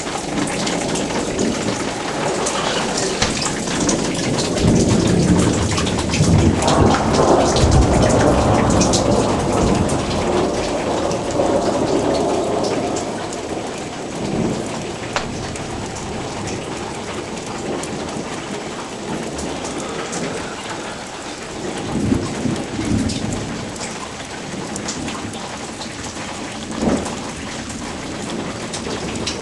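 Thunderstorm: heavy rain falls steadily, and a long rumble of thunder swells from about four seconds in and rolls on for some seven seconds. A shorter rumble of thunder comes about two-thirds of the way through, and a brief loud burst sounds near the end.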